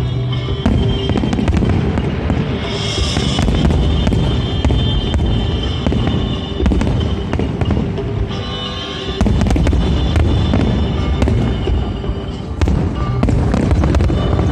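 Fireworks display: a dense run of bangs, booms and crackling from bursting shells, over accompanying show music.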